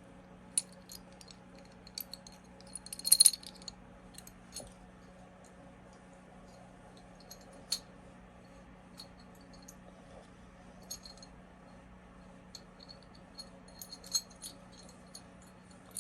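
Small steel gun parts clicking and clinking as a Remington 870 bolt's firing pin and firing pin spring are fitted into the bolt by hand. The clicks are scattered, with a quick cluster of louder clinks about three seconds in.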